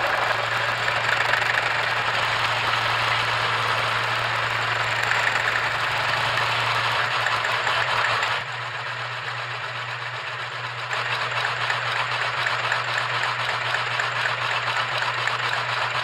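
Homemade power hacksaw running: a steady electric-motor hum under the continuous rasp of the reciprocating hacksaw blade sawing. About eight seconds in, the rasping drops away for a couple of seconds, then picks up again.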